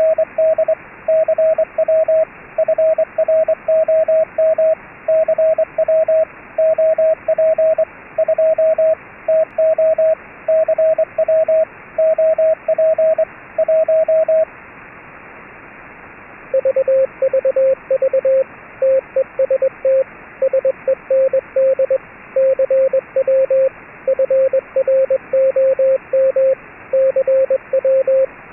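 Morse code sent as keyed CW sidetone: one station sends a string of dots and dashes at a higher pitch until about halfway, then after a short pause a second station answers at a lower pitch. Steady HF radio static hisses underneath throughout.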